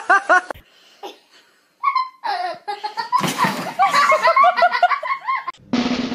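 A person laughing hard in quick repeated bursts, briefly at the start and again for a couple of seconds from about three seconds in. A steady hum comes in near the end.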